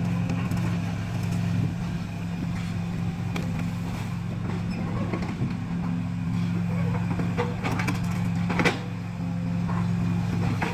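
An excavator's diesel engine running steadily, with one sharp knock about eight and a half seconds in.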